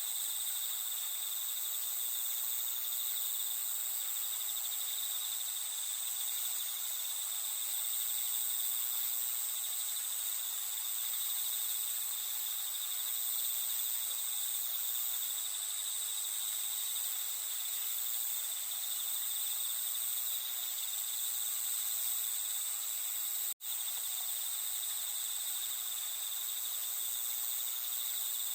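Night chorus of insects trilling steadily in several high-pitched bands over a soft hiss. The sound cuts out for an instant about 23 seconds in, then carries on unchanged.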